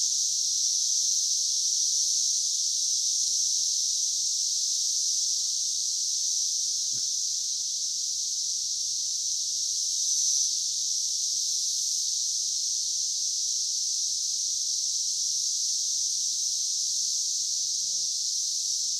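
Dense chorus of Brood X periodical cicadas: a steady, high-pitched drone that never breaks.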